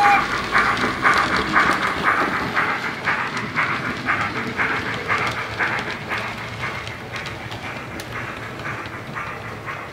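Model Fairburn 2-6-4 tank locomotive with Wheeltappers DCC steam sound, playing through a small flat sugarcube speaker: a regular steam exhaust beat of about two chuffs a second, fading gradually as the locomotive moves away.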